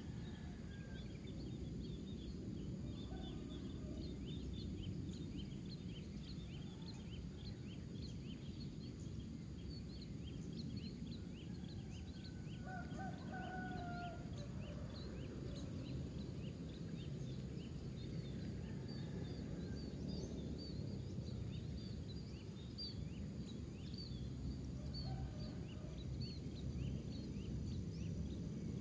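Outdoor paddy-field ambience: many short high chirps, a very high insect trill that comes and goes, and one longer two-toned call about twelve seconds in, over a steady low rumble.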